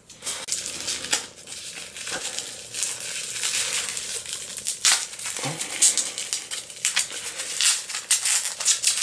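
Paper and plastic packing material crinkling and rustling as hands dig through shredded paper and plastic bags and unwrap a small object from tissue paper: a continuous crackle full of sharp little crinkles.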